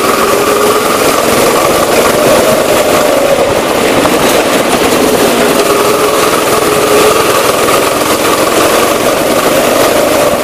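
Go-kart's small engine running at speed, heard from the driver's seat, its pitch slowly rising and falling as the kart speeds up and slows.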